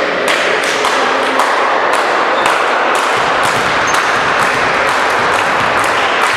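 Sports-hall din during an amateur volleyball match. Many sharp taps and thuds come from the ball and the players on the court, over a steady background of hall noise.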